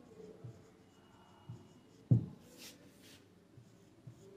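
Marker writing on a whiteboard: soft taps and strokes, with a sharper tap about two seconds in followed by a couple of short scratchy strokes.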